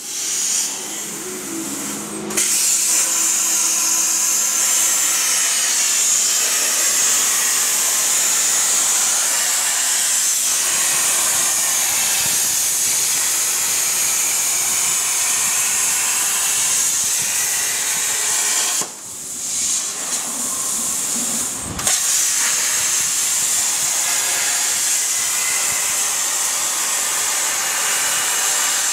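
CNC plasma cutter's torch cutting steel plate, a loud steady hiss of the arc and cutting air. The hiss stops twice, near the start and about two-thirds through, leaving a low hum, as the torch moves between cuts.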